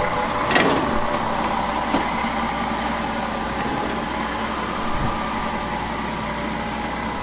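Steady mixed hiss and hum in the cab of steam locomotive 50 3648, standing with steam being raised, while a diesel railcar moves past the cab window.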